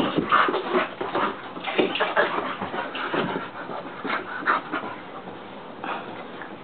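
Two dogs wrestling in play, making short, irregular dog noises that come in uneven bursts, busiest in the first couple of seconds.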